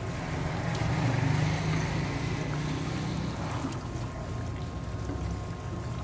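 Chicken gravy with fresh cream sizzling and bubbling in a wok while being stirred with a wooden spoon, over a steady low rumble.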